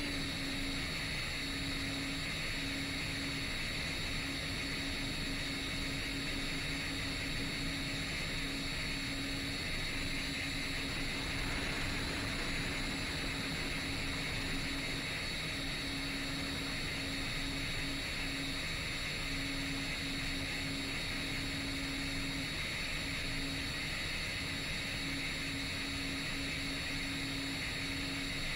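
Motors and propellers of a 10-inch FPV quadcopter running steadily in cruise, a constant whir with hiss and a low hum that flickers on and off.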